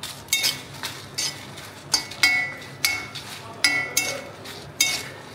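Metal spatula knocking and scraping against a metal kadai, about two ringing clinks a second, as dried red chillies are stirred and roasted in a little oil.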